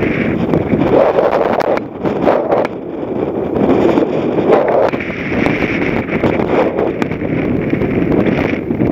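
Wind buffeting the camera's microphone, mixed with dry grass rustling and brushing as someone walks through a field of tall grass.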